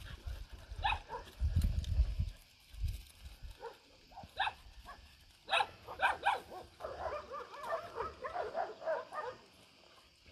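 Dogs barking: scattered short, sharp barks, then a quick run of overlapping barks and yelps from about seven to nine seconds in. A low rumble in the first two seconds or so.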